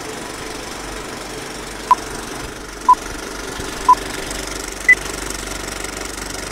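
Film-projector rattle with film-leader countdown beeps: three short beeps a second apart at one pitch, then a fourth, higher beep.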